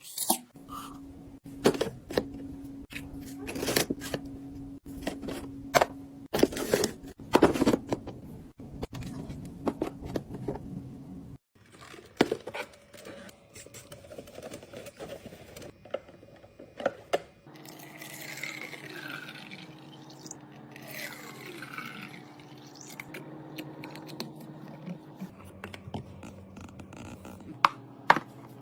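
Drinks and containers handled and set into a mini fridge during restocking: a run of knocks, clicks, clinks and scrapes over a low steady hum. The background changes abruptly a few times.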